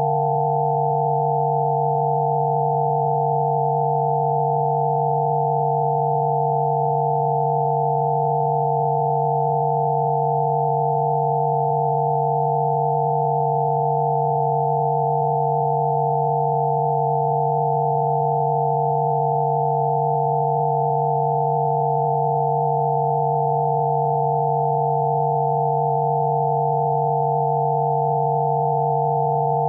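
Rife frequency tones: several steady electronic sine tones sounding together, a low hum under a cluster of higher pure tones, unchanging throughout.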